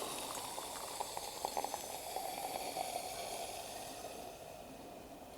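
Freshly brewed coffee pouring from a stovetop moka pot into a cup: a steady liquid trickle with a few small clinks about a second in, fading away near the end.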